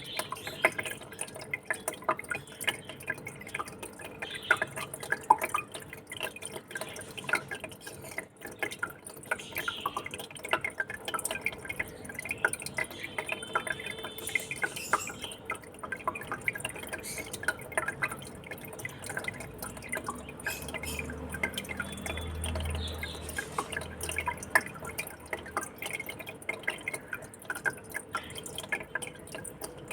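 Water in an aquarium trickling and dripping, a steady, dense patter of small drips and splashes.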